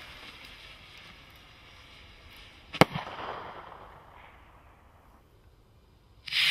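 A Vulcan 2.5-inch shell rocket's peony shell bursts with one sharp bang about three seconds in, followed by a fainter crack and a fading echo. Near the end the next shell rocket launches with a loud whoosh.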